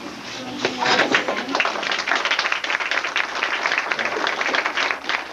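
A round of applause from many people clapping, starting about a second in as a song ends, with some voices mixed in.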